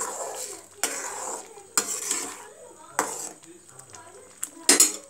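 Perforated steel ladle stirring and scraping through rava upma in a stainless steel kadai, about one stroke a second, with a sharper scrape near the end.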